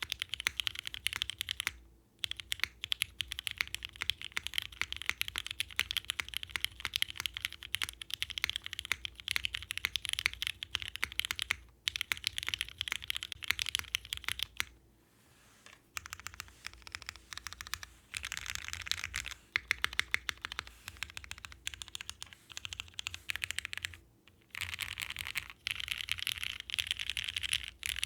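Fast typing on a mechanical keyboard with Cherry MX Black linear switches in an aluminium plate, fitted with ABS keycaps. The keystrokes come in quick continuous runs, broken by a few short pauses.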